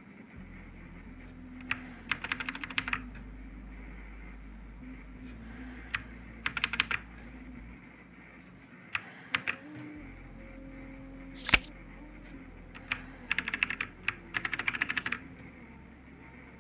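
Typing on a Machenike K500A-B84 mechanical keyboard: short bursts of rapid key clicks separated by pauses, with one sharp single key strike about two-thirds of the way in.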